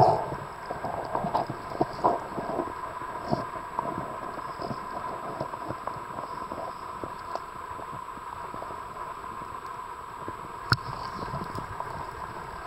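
Underwater sound picked up by a camera in its waterproof housing: irregular crackling clicks over a steady hum, with one sharp knock about eleven seconds in.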